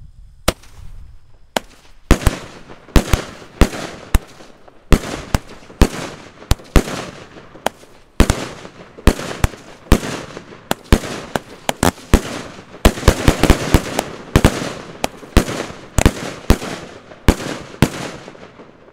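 A 25-shot, half-inch-bore salute cake firing: a long run of loud, sharp bangs, one or two a second, each trailing off after the report, thickest just past the middle and stopping near the end.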